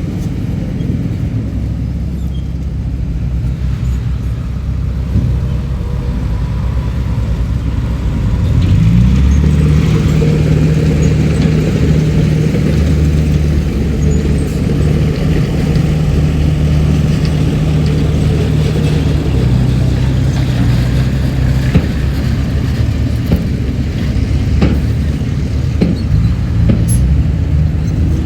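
Komatsu D31PX bulldozer's diesel engine running, revving up about nine seconds in and then holding at higher revs under load.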